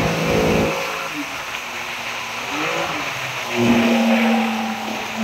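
Speedboat running fast through the sea: engine noise mixed with the rush of water and spray, and wind across the microphone.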